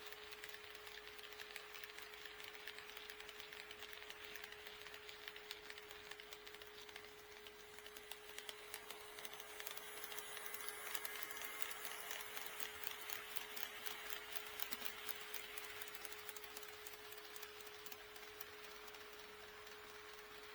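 HO-scale model train running along the track, its wheels making a dense run of faint clicks over the rail joints that grow louder from about halfway through and then fade. A steady hum sounds underneath.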